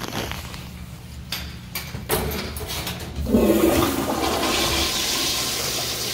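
Commercial flushometer toilet flushing: a few clicks, then about three seconds in water rushes loudly into the bowl and churns. The toilet is clogged, so the flush water swirls up in the bowl rather than draining away.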